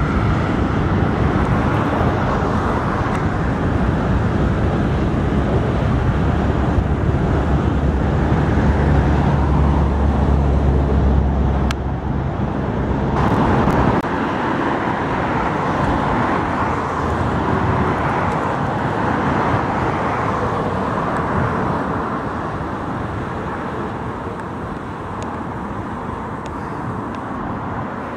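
Road traffic passing close by: steady tyre and engine noise, with the deep rumble of a heavy vehicle building to a peak about ten seconds in and dropping away around fourteen seconds in, leaving lighter steady traffic noise.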